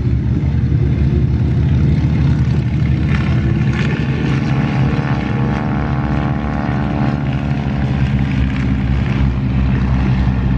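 A formation of vintage Stearman-type biplanes taking off and climbing past, their piston engines and propellers making a steady drone. About halfway through, a higher engine note falls in pitch as a plane goes by.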